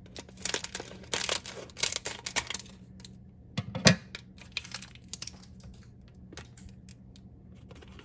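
Foil blind-bag wrapper crinkling and tearing as it is pulled open by hand, in clusters of rustle during the first three seconds, then sparser crinkles. A single sharp knock just before four seconds in is the loudest sound.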